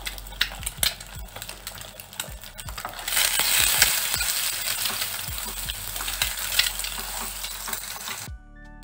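Eggs frying in hot oil in a non-stick pan, sizzling, while a wooden spatula taps, scrapes and stirs them. About three seconds in, the sizzle turns louder and denser as the eggs are broken up.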